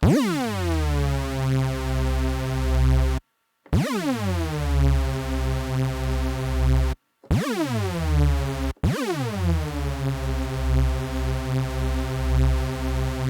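Hoover rave-synth sound played on Ableton Live's Drift synthesizer in unison mode: four held notes, each swooping steeply down in pitch at the start into a thick, wide, detuned tone that wavers, then cutting off sharply with its short release.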